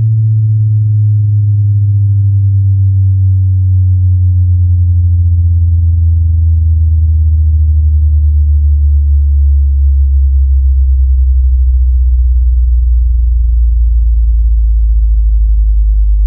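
Bass test tone: a loud, deep sine-wave tone gliding slowly and steadily downward in pitch, with fainter higher tones falling along with it.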